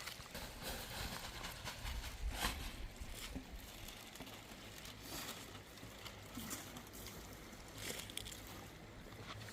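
Scattered faint knocks and rustles at irregular moments over a low steady hum.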